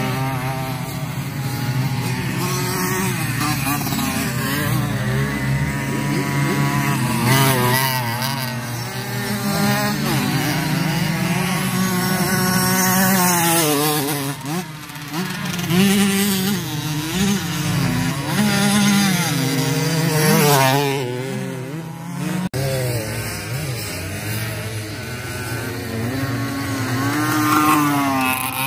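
Several 50cc two-stroke racing motorcycles running hard, their high-pitched engine notes rising and falling as the riders rev, shift and pass. There is a brief sudden drop-out about 22 seconds in.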